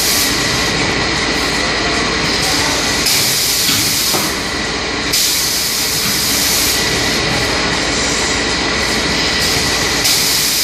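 French fry paper cup forming machine running steadily, with bursts of pneumatic air hiss every few seconds as its forming head cycles.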